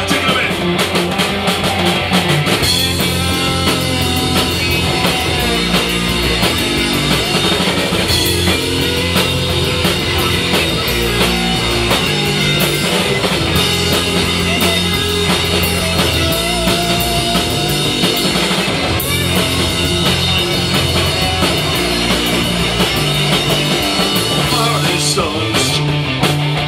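Loud punk rock band playing an instrumental stretch of a song, with electric guitars, bass guitar and a drum kit keeping a steady beat. A lead guitar line bends in pitch over the top.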